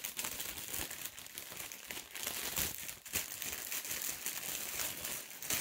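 Thin clear plastic bag crinkling and crackling irregularly as it is handled and packed, with a few sharper crackles.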